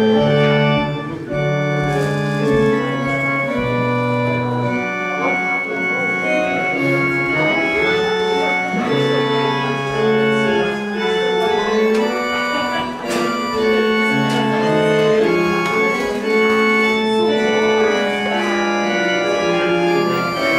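Organ playing a closing voluntary after the benediction: sustained chords, with several notes held together and the harmony changing roughly once a second.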